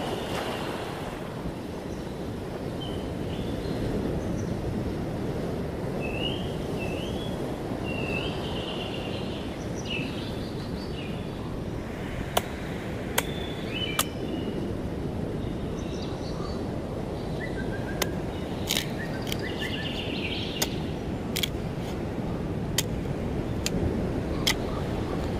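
Sharp knocks of a machete chopping into a dead, dry tree stump, struck about once a second from about halfway in, over a steady background rush, with birds chirping.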